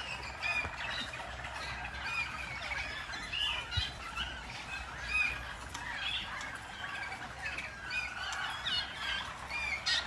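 Several Harzer Roller (German Roller) canaries singing at once: a dense chorus of overlapping rolls, trills and chirps that never pauses.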